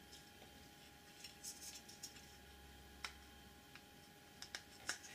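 Faint scratches and small plastic-and-metal clicks as a replacement relay's pins are pressed into the through-holes of a circuit board, with one sharp click about three seconds in and a few more near the end.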